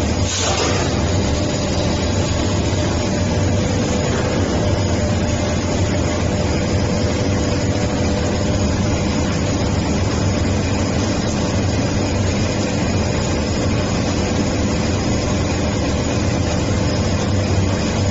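Glue spreading machine for paper and cardboard sheets running steadily: a constant motor hum with a steady mid-pitched whine over it.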